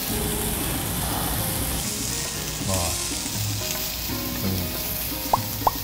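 Beef sizzling on a tabletop Korean barbecue grill plate, a steady hiss of fat frying. Two brief clicks come near the end.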